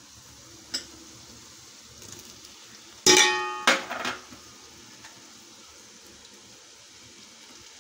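Chopped tomato and pineapple tipped from a bowl into an aluminium pot of fried onions. About three seconds in, the bowl clanks against the pot with a short metallic ring, followed by a second knock. Under it, the onions sizzle faintly in oil.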